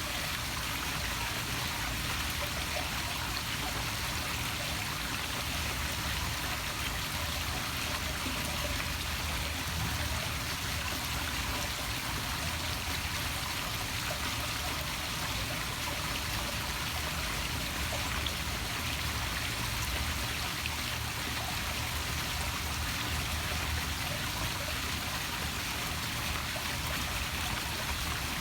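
Small poolside waterfall splashing steadily into a pool, with water churning around a floating beach ball.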